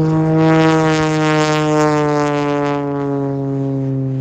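Piston-engine biplane with propeller passing by in a steady drone; its pitch falls slowly as the plane moves away.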